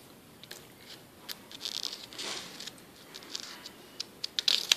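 Pages of a spiral-bound booklet being handled and turned: soft paper rustling with scattered light clicks and taps, which come thicker near the end.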